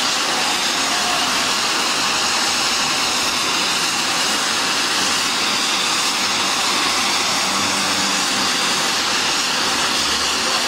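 Cold-fog geyser effect jetting out clouds of white fog with a loud, steady hiss.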